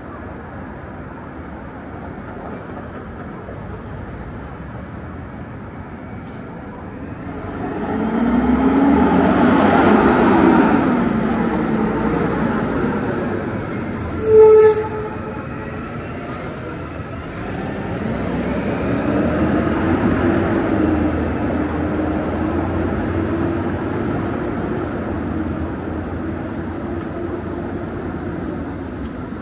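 Vehicles passing on a city street, a motor whine gliding up and down in pitch as the noise swells twice, with a short loud ringing tone a little before halfway.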